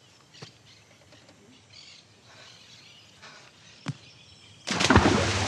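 Quiet outdoor ambience with faint bird chirps and a couple of light clicks. Near the end a sudden loud rushing noise starts and keeps going, with a steady low hum under it.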